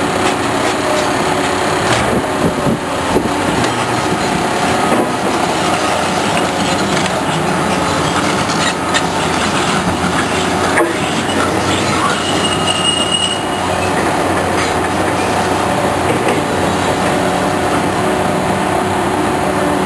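Heavy machinery running steadily, with a dense mechanical din, metallic squeals and a few sharp clanks.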